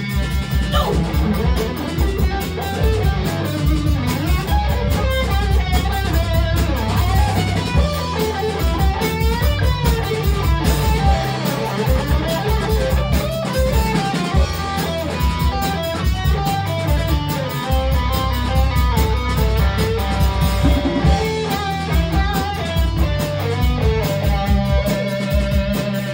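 Rock band playing live in an instrumental passage: electric guitar over bass guitar and drums, recorded on a smartphone in the room.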